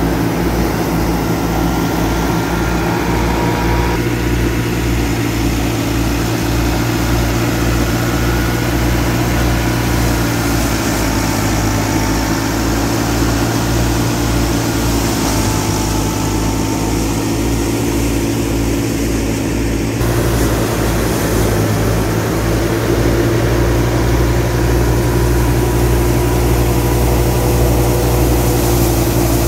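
Massey Ferguson 385 tractor's four-cylinder diesel engine running steadily under load, driving a wheat thresher through its PTO shaft while the thresher drum and belts run with it. The tone shifts slightly a few seconds in and again about two-thirds through.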